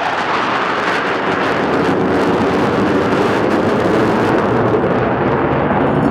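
Loud, steady jet noise from an F-16 fighter's engine as the jet flies past overhead. The hiss thins out near the end as the jet moves away.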